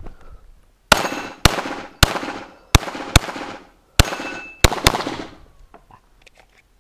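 Eight pistol shots fired from a Glock pistol in quick pairs and singles over about four seconds, each ringing out with a long echo.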